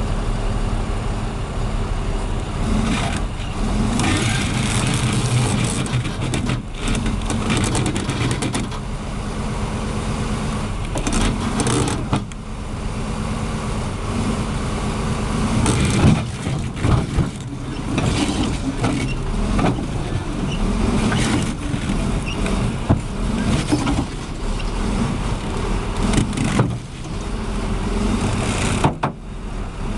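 Heavy vehicle engines running, with the noise of driving. The sound changes abruptly several times, and there are a few sharp knocks about a third of the way through.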